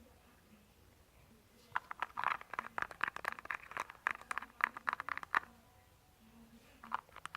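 A fast run of small sharp taps and scratches, like fingernails or a hard object tapping and scraping on a surface, starting about two seconds in and stopping about five and a half seconds in, with a few more near the end.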